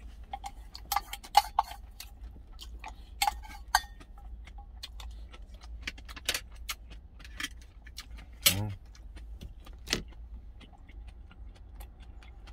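Stainless-steel lunch container clinking and tapping as it is handled, with short metallic rings, over a steady low rumble. About eight and a half seconds in there is one brief sound that falls in pitch.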